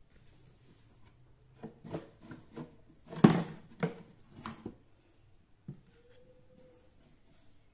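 A thin plastic sheet and a PVC pipe handled on a worktop: a run of scrapes and knocks over about three seconds, the loudest a little after three seconds in, then one softer knock near the end.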